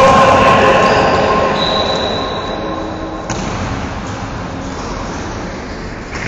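Echoing sports-hall din of an indoor futsal game, with a few steady squeal-like tones through the first half that stop sharply about three seconds in.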